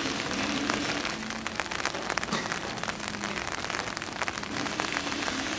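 Steady rain pattering on the wet ground and rails, with many small drop ticks close by.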